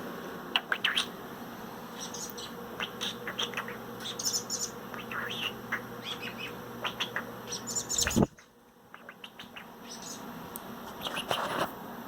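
Robin chirping in short, high calls scattered throughout, over a steady background hum. About eight seconds in there is a sharp knock, after which the hum drops away.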